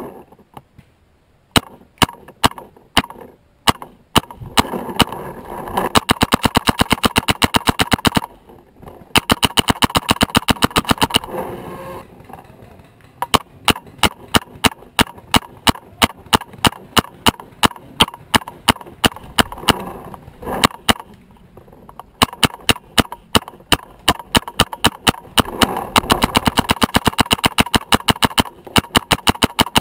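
Paintball markers firing: sharp pops in several long, fast strings with scattered single shots between.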